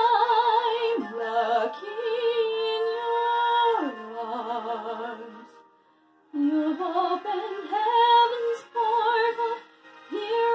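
A woman singing a musical-theatre song solo, with wide vibrato on her held notes. A long phrase with two downward slides gives way to a short breath pause just before the midpoint, then shorter phrases follow.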